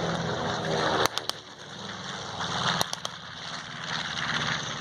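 Piston warplane engine running with a steady low drone, with a few sharp clicks about a second in and again near three seconds.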